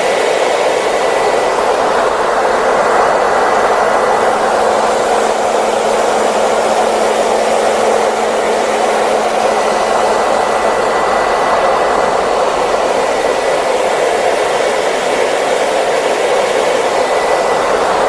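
Hair dryer running steadily: an even rushing blow of air with a faint steady whine from the motor.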